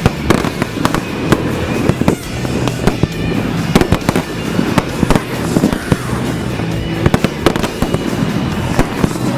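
Fireworks display finale: a dense run of shell bursts and crackling, several sharp bangs a second, with music playing underneath.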